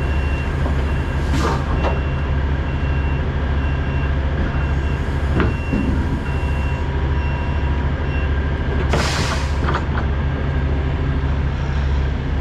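Steady low drone of idling diesel trucks in a truck lot. A distant reversing alarm beeps about twice a second through the first half, and there are short bursts of hiss, the longest about nine seconds in.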